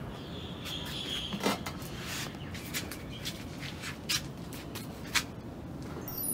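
Quiet outdoor ambience: a steady hiss with a brief high chirp in the first second, then a scattering of short sharp ticks, two of them louder about a second and a half and five seconds in.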